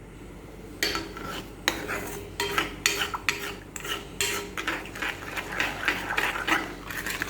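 A utensil stirring sugar into heating milk in a pan, scraping and knocking against the pan in quick, irregular strokes that begin about a second in.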